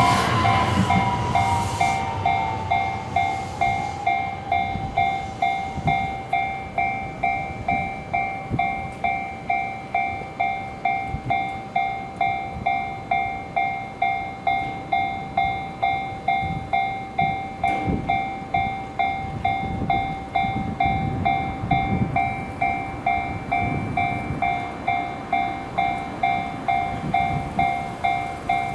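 Japanese level-crossing warning bell ringing steadily, about two strikes a second. A passing train's noise and a falling whine fade away over the first few seconds.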